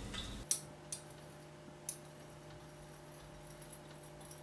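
Faint clicks and light taps of a pastry brush oiling the cavities of a donut mold, a few small clicks in the first two seconds, over a steady low hum.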